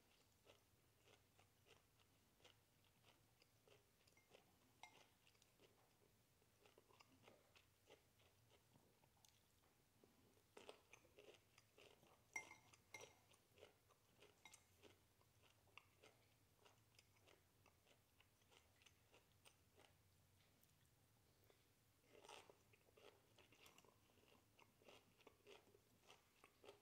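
Faint close-up chewing of cooked broccoli: soft, wet mouth sounds with small crunches. A fork clinks against the ceramic bowl, with one sharper ringing clink about halfway through.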